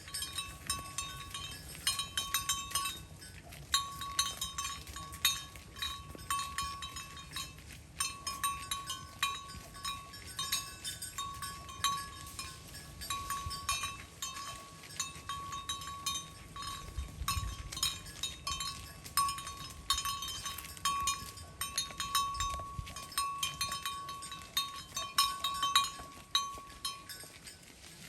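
Cowbells on grazing cattle clanking unevenly, many strikes close together, each ringing at the same clear pitch.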